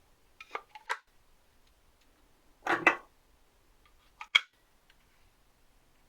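Small objects being handled at close range: three sharp clicks in the first second, a louder rustling scrape about three seconds in, then two more sharp clicks.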